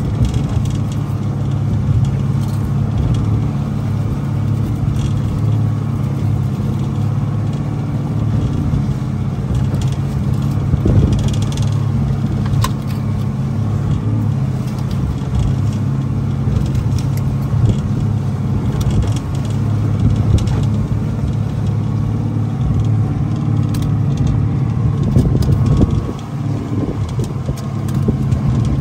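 A boat's engine running steadily with a low, even hum, the boat underway on the open ocean.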